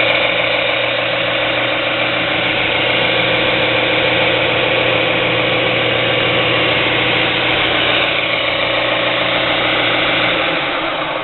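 JET 42879 6-by-48-inch belt and 10-inch disc combination sander, 1 hp 115 V motor, running steadily under power with an even hum and a whir from the spinning belt and disc. Near the end the sound begins to fall away.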